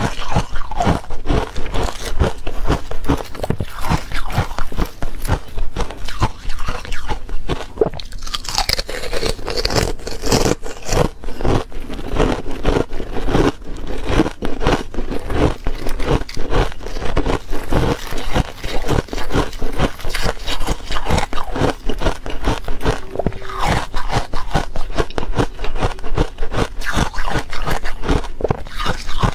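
Buckwheat ice being bitten and chewed: rapid, dense crunching that goes on without a break.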